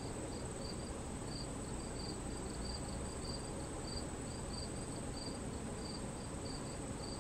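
Outdoor insect chorus: a steady high-pitched drone, with a second insect chirping in short, uneven pulses about two to three times a second.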